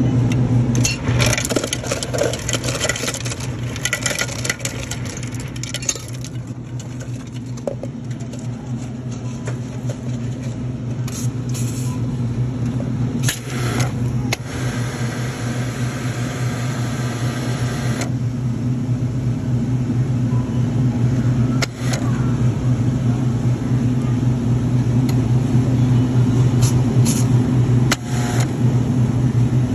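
Steady low machine hum at a self-serve soda fountain, with stretches of hissing as soda pours from the dispenser nozzle into a paper cup and fizzes up into foam.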